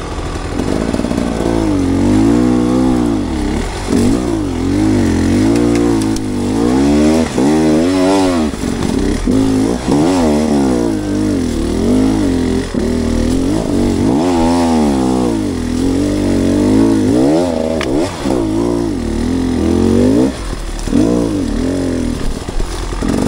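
Off-road dirt bike engine being ridden hard, revving up and falling back again and again as the throttle is worked, with a few short drops when the throttle is shut.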